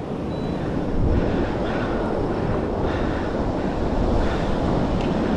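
Steady wind buffeting the microphone over the wash of water, growing louder about a second in and then holding steady.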